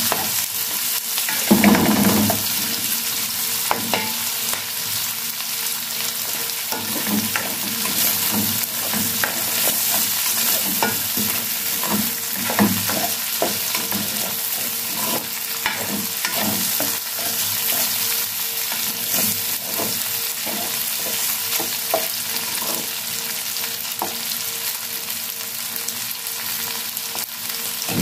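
Diced hotdogs and onion sizzling in an aluminium wok, stirred with a spatula that scrapes and knocks against the pan in scattered small strokes. There is one louder clatter about two seconds in.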